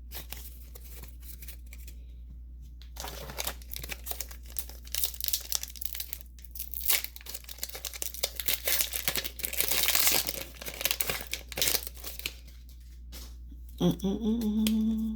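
Foil wrapper of a Pokémon TCG booster pack crinkling and tearing as it is opened by hand. The crackling starts about three seconds in and is loudest about ten seconds in.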